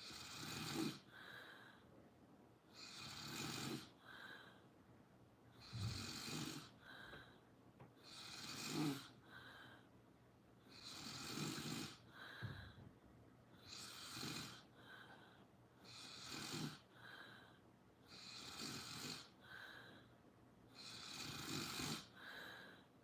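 Steady snoring, one breath about every two and a half seconds, each rasping snore trailed by a short, higher-pitched puff.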